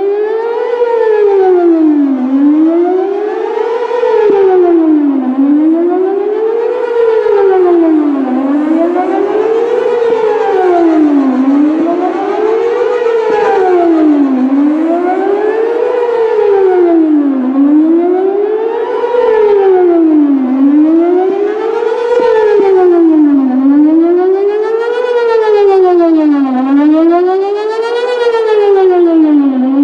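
Whelen WPS-4008 electronic outdoor warning siren sounding a wail tone during a siren test: a loud, steady pitch that rises and falls evenly about once every three seconds.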